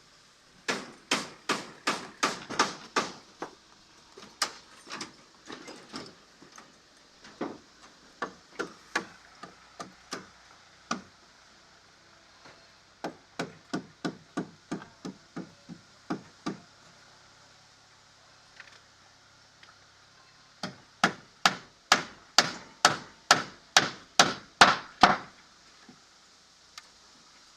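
Hammer driving nails into timber boards, in quick runs of about three blows a second with short pauses between, as wooden formwork is fixed in place. The last run is the loudest.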